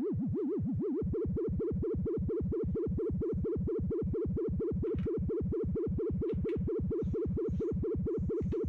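Synthesizer tone with its pitch wobbled up and down by an LFO, about six times a second. About a second and a half in, the wobble turns from smooth sweeps into sharper, choppier pulses as the LFO slot is switched.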